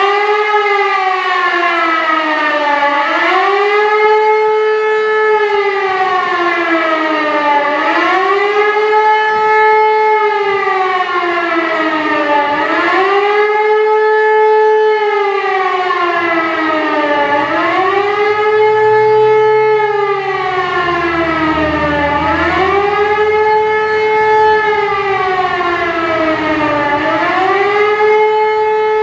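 Civil defence warning siren wailing, its pitch rising and falling about every five seconds. This is the German warning signal to the population, sounded during a test alarm.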